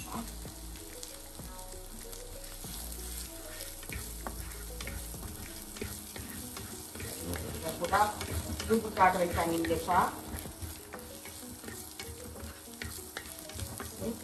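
Minced garlic sizzling in hot oil in a non-stick frying pan. It is stirred with a wooden spoon, the strokes louder between about eight and ten seconds in.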